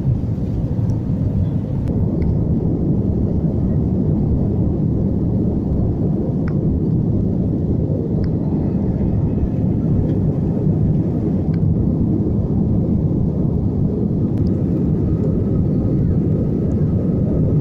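Steady low rumble of an Airbus jet airliner heard from inside the passenger cabin, the engines and airframe running evenly, with a few faint clicks over it.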